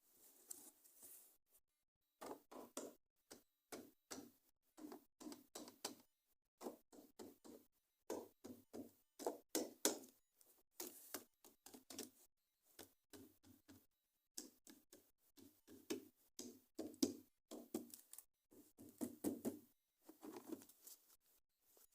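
Hands handling plastic toy packaging: a long, uneven run of light taps, clicks and knocks.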